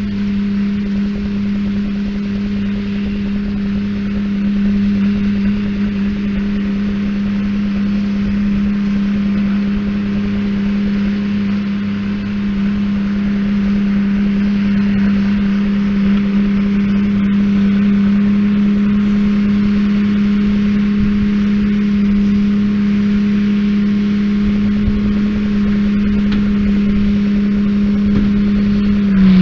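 Tractor engine running at a steady speed while powering a hay baler, a constant even hum with the baler machinery working underneath.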